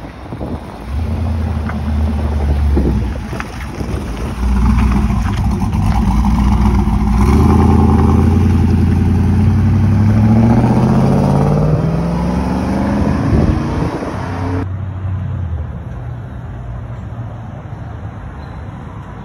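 Lifted Chevrolet Silverado's cammed V8 running through a Borla XR1 exhaust, revving and pulling away, its pitch climbing steadily as it accelerates past. About two-thirds of the way in, an abrupt change leaves a steadier, lower engine note.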